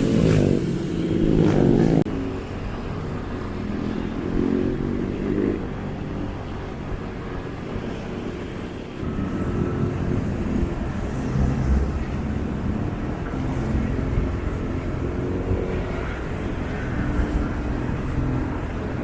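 Motorcycle engine and road noise while riding in traffic. The sound is louder for the first two seconds, then drops off abruptly.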